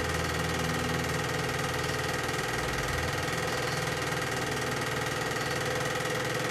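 Chinon 4000GL dual-8 cine projector running: a steady mechanical whir with a fast, even clatter from the film transport.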